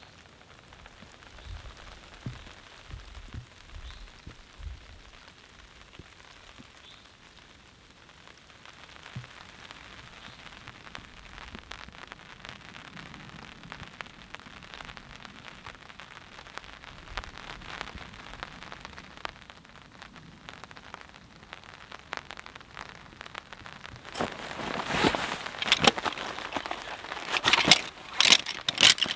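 Light rain falling, with individual drops ticking on a tarp overhead and a few low thuds in the first seconds. The drops grow louder and denser near the end.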